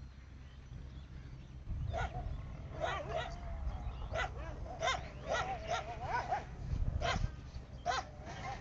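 Dogs barking, a quick run of short, pitched barks that starts about two seconds in and keeps coming at irregular intervals, over a low rumble.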